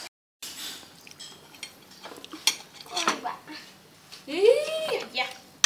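Clinks and knocks of dishes and utensils on a wooden table, scattered through the first few seconds. About four and a half seconds in comes a louder, short vocal call that rises and then falls in pitch.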